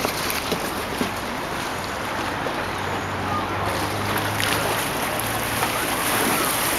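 River boat under way: a steady rush of water and wind over the microphone, with a low engine hum joining about a third of the way in.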